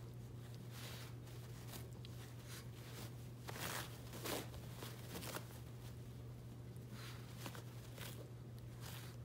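Shih Tzu tearing and chewing a paper towel: irregular rustles and rips of soft paper, loudest about four seconds in, over a steady low hum.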